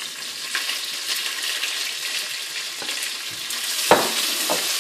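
Julienned onion sizzling in hot olive oil in a pot as it goes in and is stirred with a spatula, with a few light clicks and one sharp knock about four seconds in.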